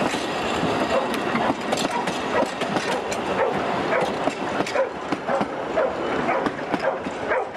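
Narrow-gauge railway carriages rolling past, with an irregular clatter of wheel clicks and knocks.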